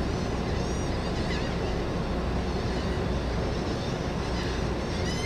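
Steady low engine rumble under an even hiss of wind and water, with faint high gull calls about a second in and again near the end.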